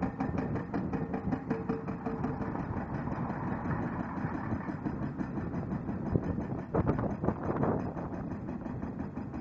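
CMB RB26 hydraulic rock breaker on a Kato HD1430 excavator hammering a dolomite boulder in rapid, evenly repeated blows, over the excavator's engine running. A few harder strikes come about two-thirds of the way through.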